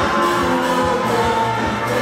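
Gospel praise music: a band playing a steady beat under held sung notes, with the congregation singing along.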